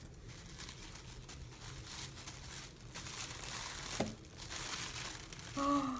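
Packaging crinkling and tearing as wrapped items are handled and unwrapped, with a sharp tick about four seconds in. A brief hummed vocal sound near the end.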